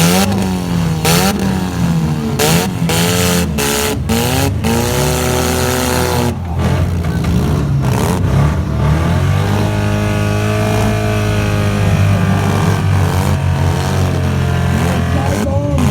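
Demolition-derby cars revving their engines hard, the engine notes rising and falling, with repeated crashes and bangs of cars hitting each other through the first half, then mostly engines revving.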